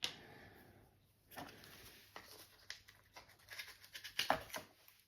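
Faint, irregular clicks and rustles of hands handling small plastic pots and lids, with a few sharper knocks about a second and a half in and again near the four-second mark.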